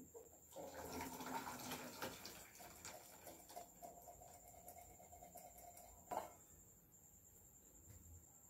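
Water being poured out of a metal saucepan: a splashing pour for a second or two, then a thinner trickle with small clinks. About six seconds in comes one sharp metal clank.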